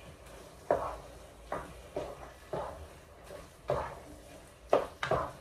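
A utensil stirring meat in a pan, scraping and knocking against the pan in a series of sharp, irregular strokes about one or two a second.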